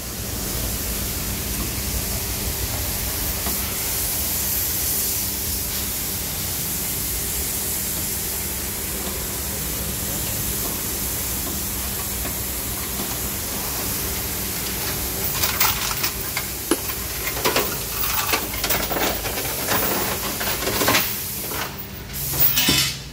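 A steady hiss, then from about 15 seconds in a run of irregular metal clinks and knocks from a chain hoist and an engine being lowered into a van's engine bay, loudest near the end.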